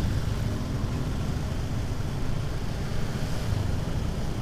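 Steady low rumble of a motorcycle moving along a road, mixed with wind noise on the microphone.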